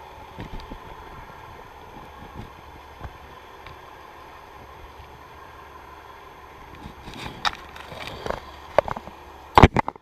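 Underwater camera recording: a steady muffled water hiss, then from about seven seconds in a run of sharp knocks and clunks, the loudest near the end as the camera is jostled and swings away.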